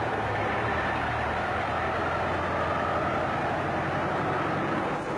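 Steady mechanical noise of paper and cardboard factory machinery running in a production hall.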